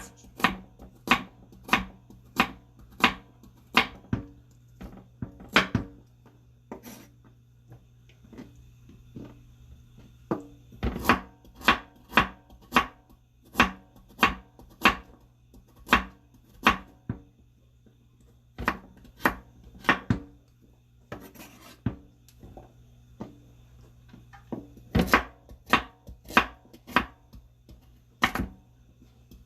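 Kitchen knife chopping vegetables on a cutting board, single sharp strokes about one or two a second. The strokes come in runs with short pauses between them, and the last few seconds go faster.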